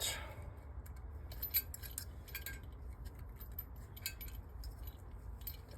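Small metal carburettor parts clicking and clinking faintly as they are handled and fitted, a few separate taps over a low steady hum.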